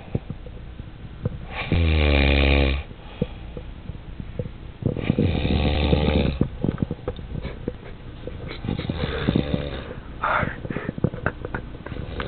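A man snoring heavily in his sleep: three long, pitched snores a few seconds apart, the last one weaker, with small clicks between them.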